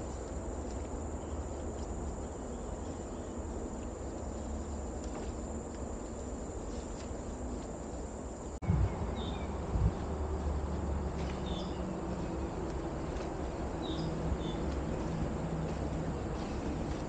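Forest ambience: a steady high insect whine over a low rumble. From about halfway, short bird chirps come several times, and there are two low thumps just after the change.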